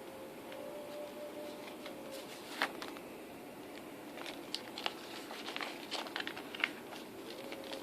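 Hands handling Blu-ray box set packaging: scattered crinkling and small sharp clicks, thickest in the second half.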